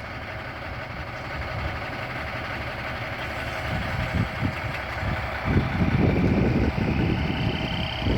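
Heavy truck engine idling, then revving louder about five seconds in as the truck starts to pull away, with a faint rising whine near the end.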